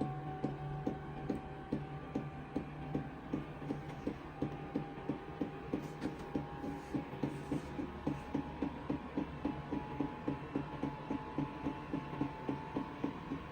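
LF Bros N2 diesel heater during its start-up: the fuel dosing pump ticking about three times a second over the steady hum of the blower fan, whose pitch slowly rises as it ramps up before the heater fires.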